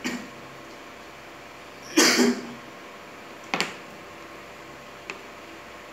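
One short cough about two seconds in, the loudest sound. A second and a half later comes a sharp knock, an oil pastel being set down on the plastic table, with a few faint ticks around it.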